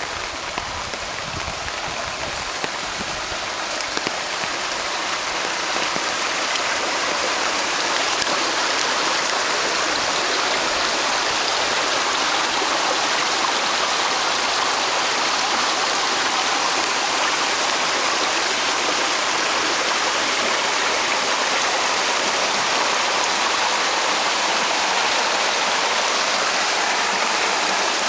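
Water from a burst ten-inch wooden water main rushing and splashing down an open dirt trench. The rush grows louder over the first several seconds, then holds steady.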